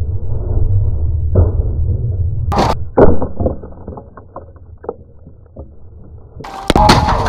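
A deep rumble with a whoosh, then a sharp impact and a heavy thud about three seconds in as an armoured jouster is thrown from his horse into the dirt, followed by a scatter of small ticks and a loud crashing clatter near the end.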